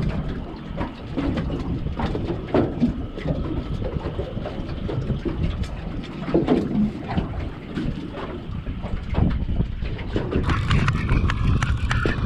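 Wind buffeting the microphone in a steady low rumble, with irregular knocks and clatter scattered throughout.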